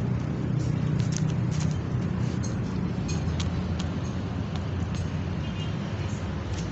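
Steady low engine rumble of nearby motor traffic, with a few light clicks scattered through it.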